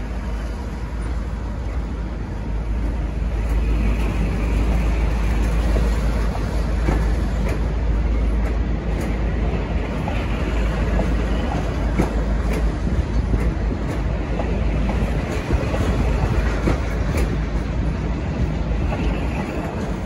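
V/Line loco-hauled passenger carriages rolling past as the train departs, a steady rumble with irregular sharp clicks from the steel wheels over rail joints and points.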